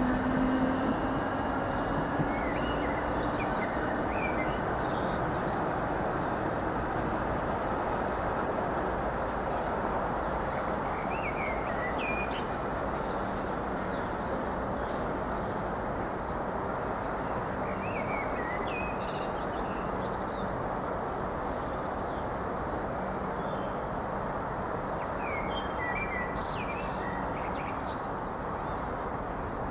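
Irish Rail 8100/8300-class DART electric multiple unit pulling away: a motor whine rising in pitch fades in the first few seconds, then the steady noise of the train running on into the distance. Birds chirp several times.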